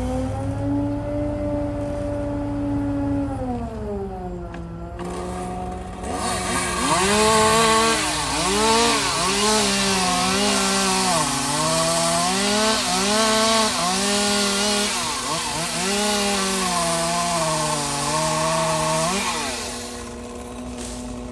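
Gas chainsaw running, its engine note falling about four seconds in. From about six seconds it is cutting wood, loud and rasping, its pitch dipping and recovering again and again as the chain bogs in the cut, then easing off near the end.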